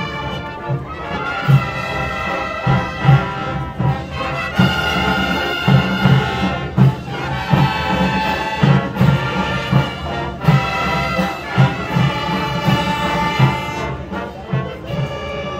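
Student brass marching band playing: trumpets and trombones holding loud chords over a steady bass drum beat.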